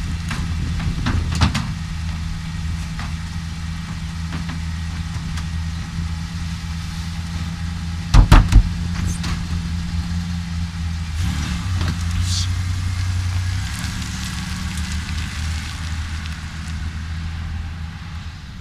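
Pickup truck engine idling steadily, with a few loud knocks about eight seconds in. The engine note shifts a little past eleven seconds.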